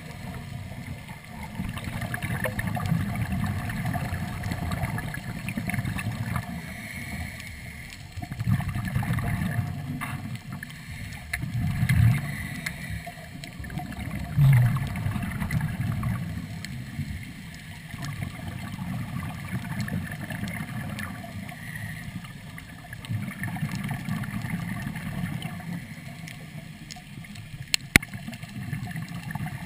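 Muffled underwater noise of scuba exhalation bubbles heard through a GoPro housing, with rushing stretches several seconds long and quieter gaps between breaths. One sharp click comes near the end.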